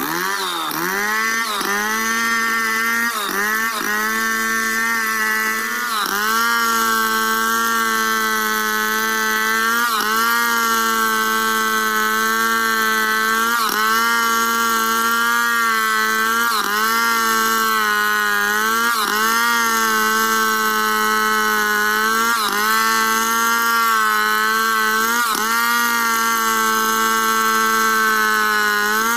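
Stihl two-stroke chainsaw running at high revs under load, ripping lengthwise along a log in a freehand milling cut. Its pitch sags and recovers every two to three seconds as the bar is pushed through the wood.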